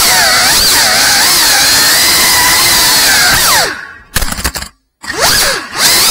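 FPV drone's brushless motors and propellers whining, the pitch sliding up and down with the throttle. A little over halfway through, the sound falls away, stutters and cuts out briefly, then the motors spool back up with a rising whine.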